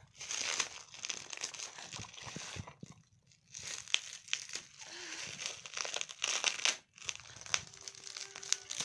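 Plastic packaging crinkling in irregular bursts as a small cardboard box is handled over it, with a brief lull about three seconds in.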